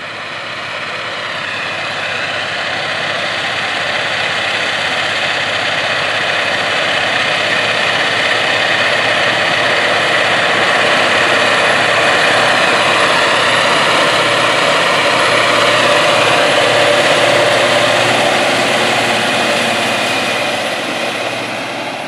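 620-horsepower John Deere 9620RX four-track tractor running under load, pulling a 55-foot John Deere 2210 field cultivator through the soil. It grows steadily louder as it approaches, is loudest about three quarters of the way through, then fades near the end as it passes.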